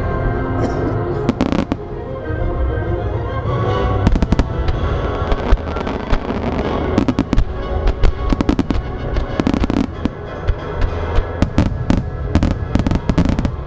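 Aerial firework shells bursting in quick succession with crackling, many sharp bangs packed closer together in the second half, over music that plays throughout.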